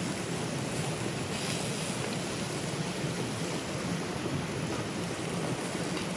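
Steady rush of river water.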